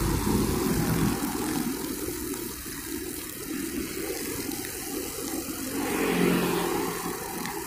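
Honda GX35 four-stroke string trimmer running as it cuts grass, under a steady hiss of passing road traffic. The sound swells briefly about six seconds in.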